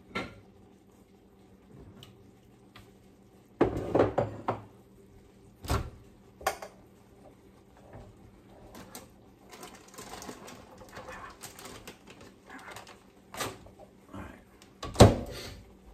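Kitchen clatter of someone moving about: scattered knocks and clinks of dishes, packets and cupboards, a short run of them about four seconds in and the loudest single knock near the end, over a faint steady hum.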